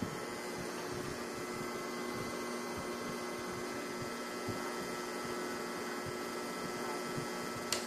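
LG air conditioner running with a steady hum made of several held tones over an even rushing noise, with one short click near the end. This is the fault noise that four service visits have not cured; a specialist found the unit's mounting clips broken and held with tape.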